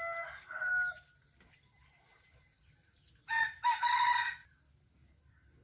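A rooster crows once, a call of about a second starting a little past three seconds in, after shorter, fainter calls in the first second.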